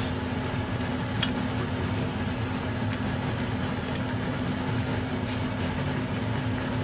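Cooking oil sizzling steadily as food fries, over a steady low hum, with a couple of light clicks.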